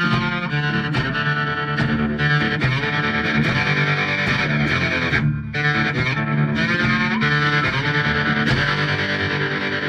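Rock music led by distorted electric guitar over a steady beat, dipping briefly about five seconds in.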